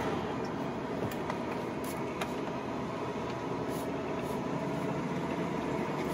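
1996 Ford F-150 pickup heard from inside the cab while driving, its engine running steadily under road noise.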